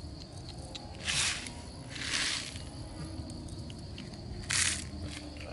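Grain shaken out of a small plastic bottle onto a trap's stick frame and the dirt below: three short hissing pours, about a second in, near two seconds in and again near the end.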